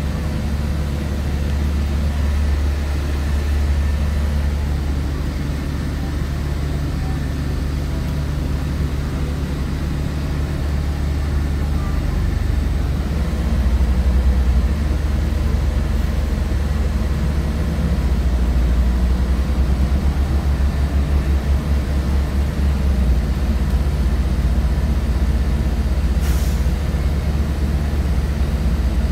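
Steady low rumble of a large vehicle running, with one brief hiss about 26 seconds in.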